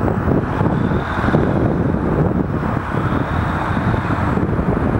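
Steady rumbling of a distant demolition crane's diesel engine running, mixed with wind on the microphone.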